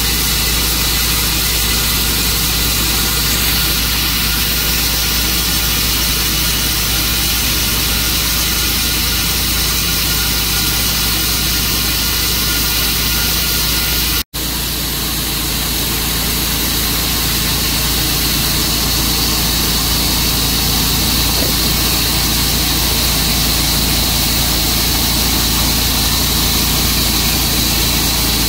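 Tru-Cut bandsaw sawmill running steadily, its engine note even throughout. The sound drops out for an instant a little past halfway, then carries on as before.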